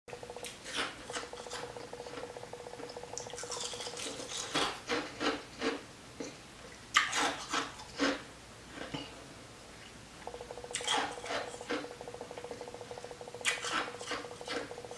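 Ice being crunched and chewed in the mouth, close to the microphone: irregular sharp crunches in two runs, with a short pause about nine seconds in. A faint steady hum sits underneath at times.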